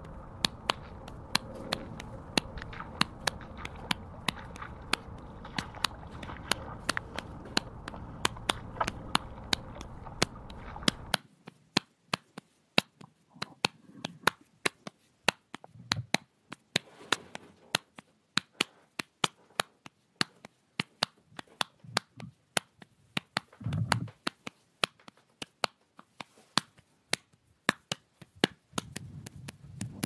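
Wooden-handled rake dragged over wet grass and soil, the handle carrying the camera: a steady run of sharp clicks and taps. A low rushing background cuts off suddenly about a third of the way in, leaving the clicks with a few dull thumps.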